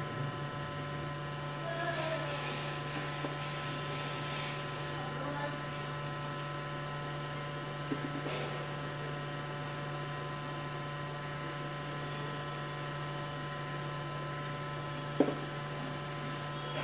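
Steady electrical mains hum, with faint scraping a few seconds in, a small click about halfway and a sharp click near the end.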